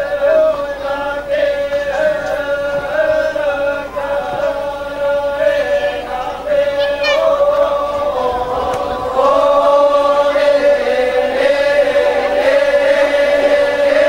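A group of voices chanting together in a Toraja funeral chant, holding one long, slow, drone-like tone that wavers and dips only slightly in pitch.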